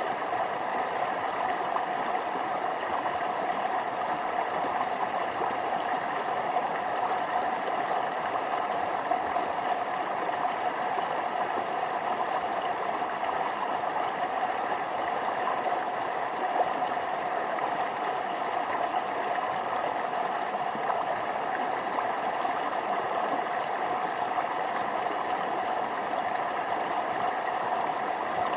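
Stream running over small waterfalls: a steady rush of water that does not change.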